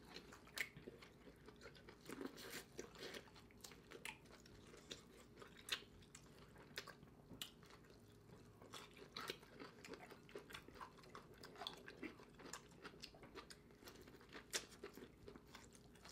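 Faint close-up chewing and lip-smacking of two people eating corn on the cob and other boil pieces with their hands, many short wet smacks and bites at an uneven pace.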